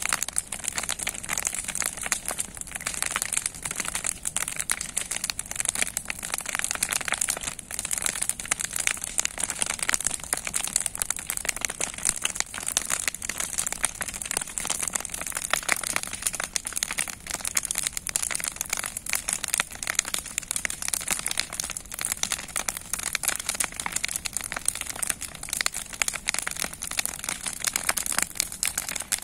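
Bonfire of old scrap wooden boards burning with tall flames, crackling densely and unevenly over a steady hiss.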